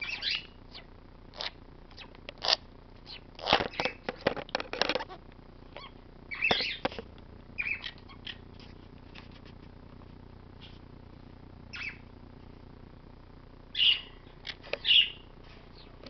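Dusky-headed conure up close, giving scattered short chirps and chatter, with rustling and clicks as it moves about on fleece. The sounds come in short, irregular bits with pauses between, and two louder calls come near the end.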